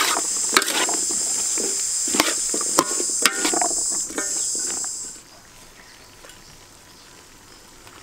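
Chopped vegetables sizzling in a steel wok as a metal spatula stirs them, with a few sharp clinks and scrapes of the spatula against the pan. The sizzling cuts off abruptly about five seconds in.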